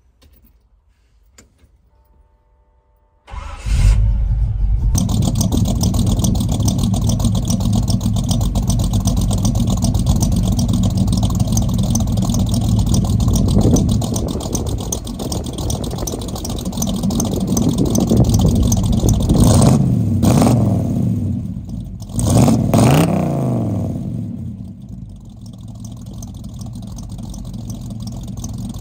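1954 Ford F-100's cammed V8 (Comp Cams Xtreme Energy 262) starting up about three seconds in, then running at idle and revved in several short blips around the middle and again past two-thirds, settling back to idle near the end.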